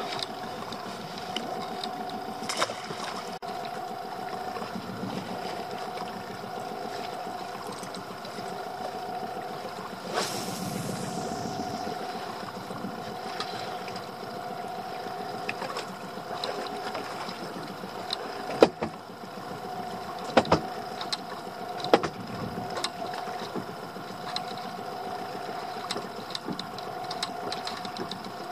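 A lure cast from a spinning rod, with a falling swish and rush of line about ten seconds in, over a steady hum. A few sharp knocks from the rod and reel against the boat follow later.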